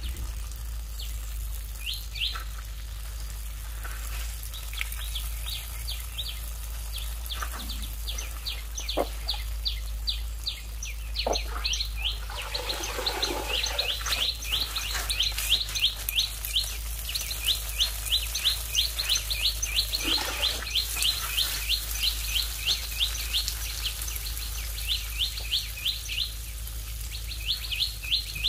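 A bird chirping in runs of short high notes, about four a second, sparse at first and more continuous in the second half, with short pauses between runs. A steady low hum runs underneath.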